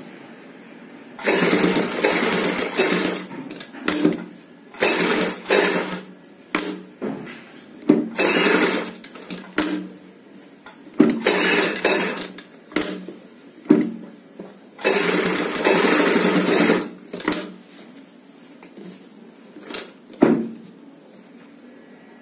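Sewing machine stitching in stop-start runs, most of them a second or two long, with short stabs of a few stitches between pauses, as fabric loops are sewn on along the piping.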